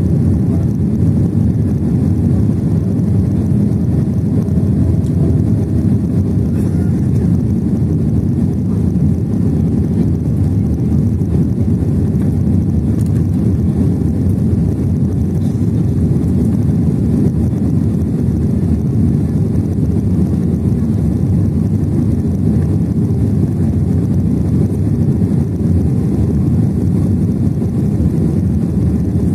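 Steady cabin noise inside a Boeing 767-400 on its descent to land: a low, even rumble of the engines and rushing air.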